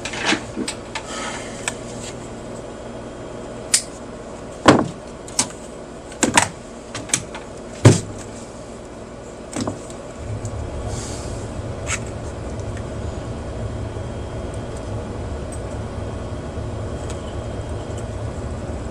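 Scattered sharp clunks and clicks of hands and tools working on a stereo receiver's metal chassis during disassembly. About halfway through, a steady low hum starts and continues.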